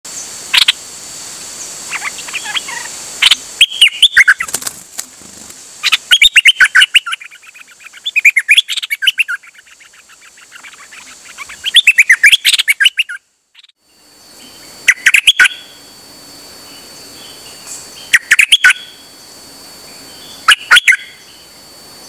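A caged songbird of the kind Thai keepers call nok dok taeng singing: loud bursts of quick, chattering notes, phrase after phrase every second or two, with a short gap about two-thirds of the way through.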